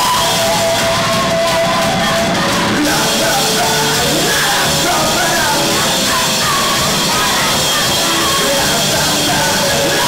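Rock band playing loud and live, a male singer singing into the microphone over guitars and drums. The band sound grows brighter and fuller about three seconds in.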